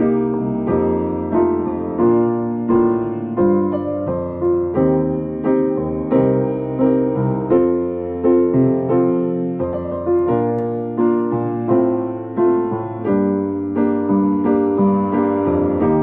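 Piano music: a melody over held chords, notes struck in an even rhythm about every half second, one tune from a medley of chime melodies arranged for keyboard.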